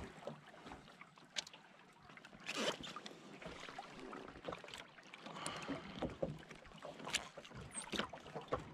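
Water lapping and splashing lightly against a small boat's hull and a wooden dock as the boat drifts in to a stop, with scattered light knocks and clicks.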